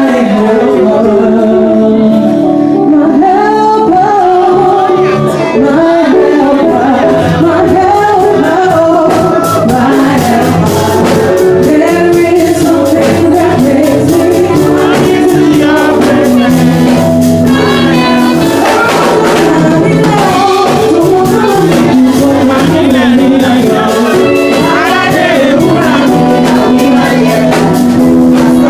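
Church worship singing with instrumental accompaniment: voices singing over steady low notes, with percussion such as tambourine growing busier about nine seconds in.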